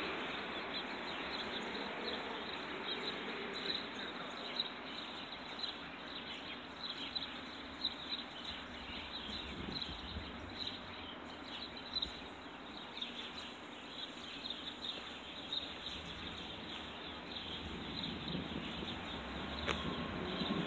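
Steady outdoor background noise with scattered short, high bird chirps throughout, and a single sharp click near the end.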